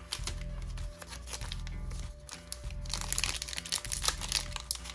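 Crinkling and rustling of a foil trading-card pack wrapper being handled and opened, growing louder from about three seconds in, over background music.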